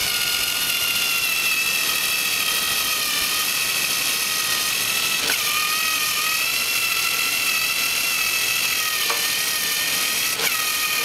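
A motor running with a steady high whine that wavers slightly in pitch, with three sharp clicks about halfway through and near the end.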